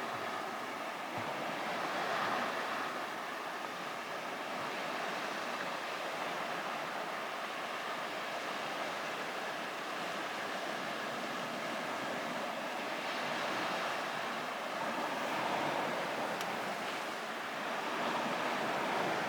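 Lake Superior waves washing against the shore: a steady rush of surf that swells a little now and then.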